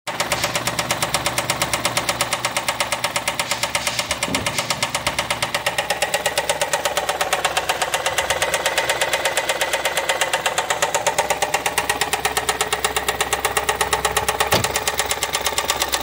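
Ford Escape turbocharged four-cylinder EcoBoost engine running steadily with a loud, fast, even knocking from the bottom end. It is rod knock on cylinder 4: the lower rod bearing is completely gone.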